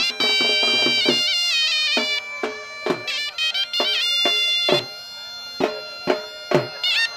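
Saraiki jhumar folk music: a wind instrument playing long, wavering held notes over steady drum strokes about twice a second.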